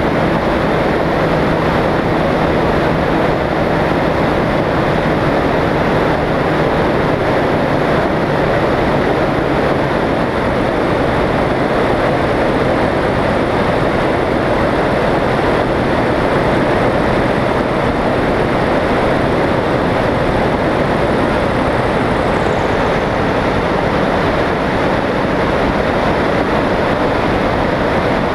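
Microlight trike's engine and propeller running steadily in cruising flight, heavily mixed with wind rushing over the open-air camera microphone.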